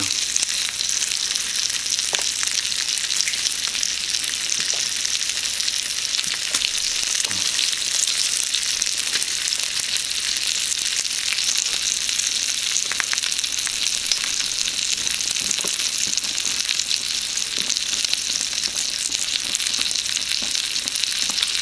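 Bacon-wrapped sausages frying on a hot pan: a steady high sizzle of rendering bacon fat, with scattered small pops and crackles.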